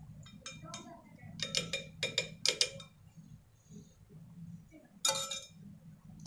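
A metal spoon clinking against a glass bowl and a steel plate while scooping marinated chicken pieces: a run of clinks in the first three seconds and one louder clink about five seconds in.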